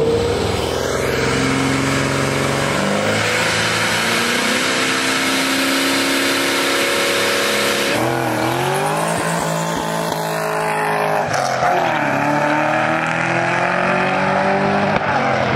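High-revving car engines of a street race, a ProCharger-supercharged Mustang against a Dodge Durango, pulling hard at full throttle. The pitch drops and climbs again at gear changes, about eight and ten seconds in.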